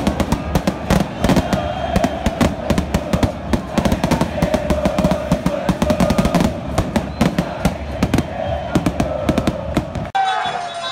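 Strings of firecrackers going off in rapid, irregular bangs over a football crowd chanting. About ten seconds in, the sound cuts abruptly to a different crowd singing.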